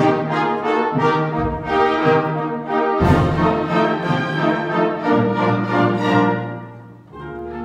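Orchestral ballet music, with a loud accented chord about three seconds in; near the end the music dies away and a quieter held chord begins.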